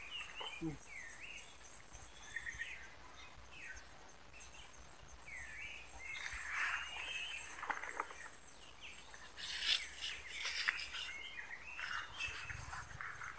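Insects droning steadily at a high pitch, with birds chirping on and off, and a cluster of clicks and rustles about ten seconds in.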